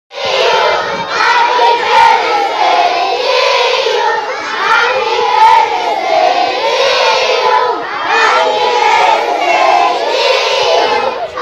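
A large group of children chanting together in unison, loud and continuous.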